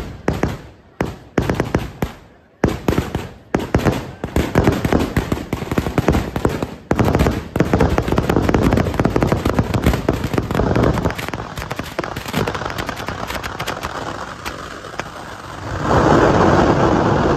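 Ground-level firework barrage: separate sharp bangs about twice a second, quickly speeding up into a dense, continuous rattle of reports. It swells to its loudest near the end.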